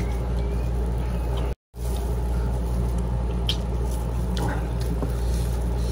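Eating sounds from chicken wing adobo: a few faint wet clicks and smacks of chewing, over a steady low hum. The sound cuts out completely for a moment about a second and a half in.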